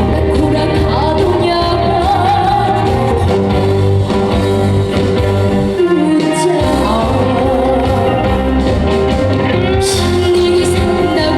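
Trot song played loud, with band accompaniment and a singing voice over a steady bass beat; the bass drops out briefly about six seconds in.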